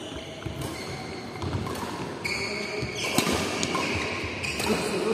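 A badminton doubles rally: sharp racket hits on the shuttlecock about every second or so, the loudest near the middle, with sneakers squeaking on the synthetic court mat as players lunge.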